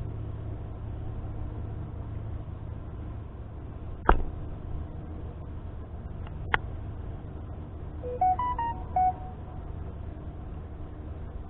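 Wind buffeting the microphone on an exposed summit as a steady low rumble, broken by two sharp knocks about four and six and a half seconds in. A brief run of beeping tones that step up and down in pitch comes a little after eight seconds.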